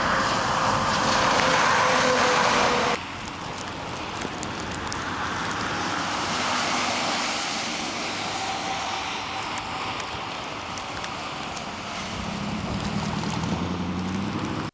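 Traffic on a snow- and slush-covered highway: a car's tyres hiss through the slush as it comes past, and the sound drops abruptly about three seconds in. Steady road noise and wind follow, with a low engine hum rising near the end.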